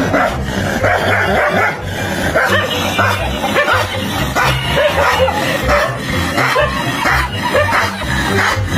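A dog barking and yipping repeatedly over background music with a steady beat.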